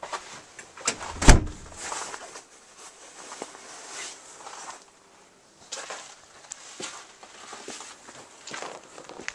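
A door bangs shut with a loud thud about a second in, followed by scattered, irregular crunching steps in snow.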